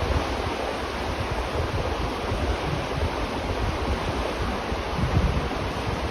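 River water flowing in a steady rush, with an uneven low rumble underneath.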